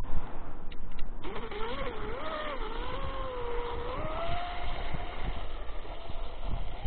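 Whine of an RC catamaran's brushless electric motor and propeller running across the water. The pitch wavers up and down, then drifts up and fades out about five seconds in. A fainter, rising whine comes back near the end.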